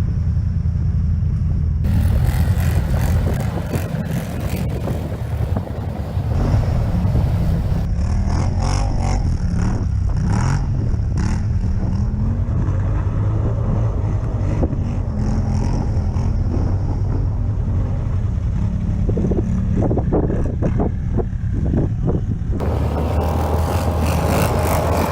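ATV engine running steadily while riding, its pitch shifting a little with the throttle, with wind buffeting the microphone.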